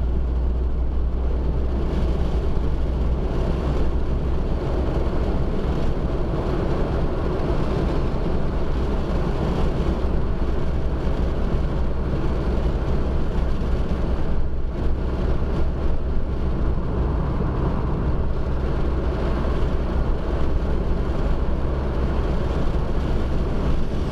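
Steady road and engine drone inside the cabin of a car travelling at highway speed: a deep, even rumble with tyre and wind noise over it.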